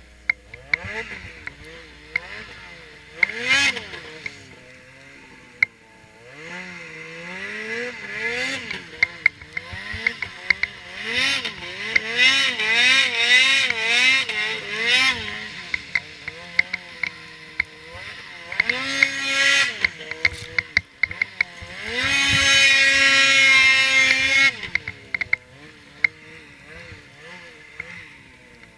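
Ski-Doo Freeride 800 snowmobile's two-stroke twin engine revving up and down with the throttle as the sled ploughs through deep powder, held at high revs for a couple of seconds about 22 seconds in, then easing off near the end. Frequent sharp clicks ride over the engine.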